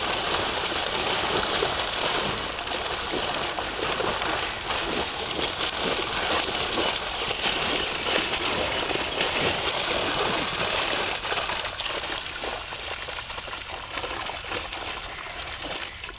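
Dense, continuous splashing and slapping of water as a tightly netted catch of carp thrashes at the surface, easing slightly near the end.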